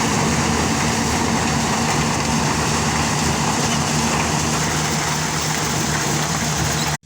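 Corn harvesting machine running steadily: a low, even engine hum under a dense mechanical noise. It cuts off suddenly near the end.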